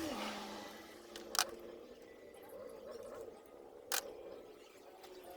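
Two sharp clicks of hand tools being handled, about two and a half seconds apart, over a faint steady background.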